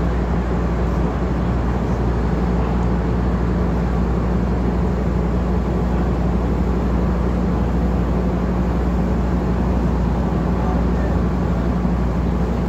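Scania N230UD double-decker bus's five-cylinder diesel engine and running noise, heard inside on the upper deck as a steady low drone with no gear change or break.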